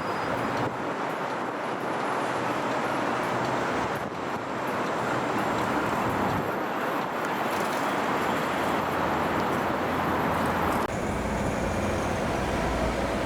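Steady road traffic noise of vehicles passing on a city street, with a deeper engine rumble coming in about eleven seconds in.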